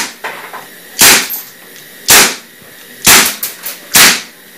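A pistol fired in a slow string of single shots, about one a second: four sharp cracks, the third followed by a few fainter clicks.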